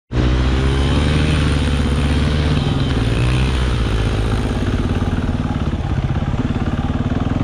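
Dirt bike engine running under steady throttle on a snowy climb, its pitch rising and falling slightly in the first few seconds, then holding steady.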